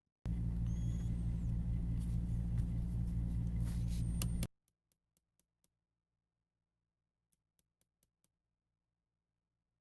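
A small electric motor hums steadily and loudly for about four seconds, then cuts off abruptly, leaving a few faint ticks.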